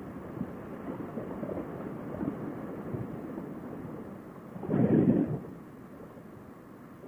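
Wind rumble on a motorcycle helmet's Bluetooth intercom microphone while riding at road speed, dull and muffled. One louder burst lasts about half a second, a little past the middle.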